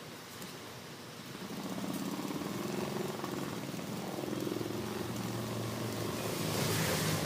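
Typical industrial lockstitch sewing machine running, its needle stitching an embroidered motif into skirt fabric; quiet at first, it speeds up and gets louder about a second and a half in, then runs on with small changes in speed.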